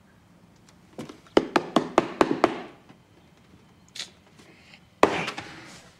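Kitchen handling sounds: a quick run of about seven sharp taps and knocks over a second and a half, then, about five seconds in, a louder knock followed by a short rustle.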